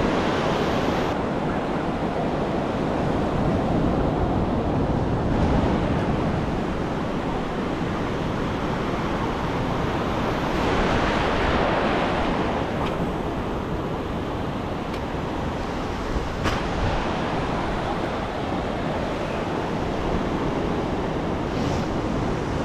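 Ocean surf washing in and out over the shallows, a steady rushing hiss, with one wave's wash swelling louder about halfway through. Wind buffets the microphone underneath.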